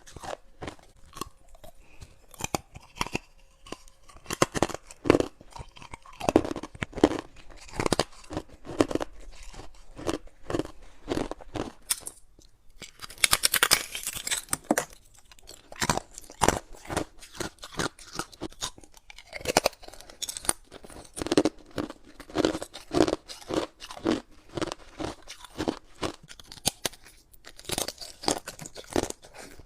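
Clear ice from a humidifier tray being bitten and chewed: a fast, uneven run of sharp crunches, with a louder, brighter bite about halfway through.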